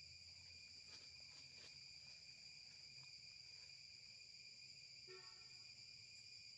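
Faint, steady drone of insects holding several high pitches at once, with a few faint clicks about a second in and a brief pitched call near the end.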